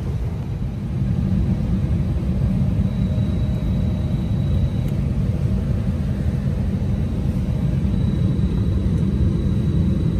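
Steady low rumble of a jet airliner heard from inside the cabin, growing a little louder about a second in.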